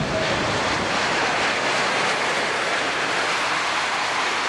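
Airbus A330 jet engines rolling out on a wet runway after landing, a loud, steady rushing roar.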